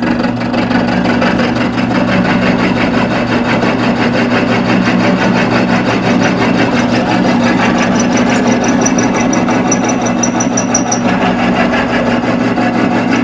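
Bench-top mill drill taking a cut into a CAT 3406 truck flywheel with a square-ended end mill. A steady motor hum runs under a continuous grinding cutting noise that builds up about half a second in. Fed at a steady chip load, the cut doesn't chatter too badly.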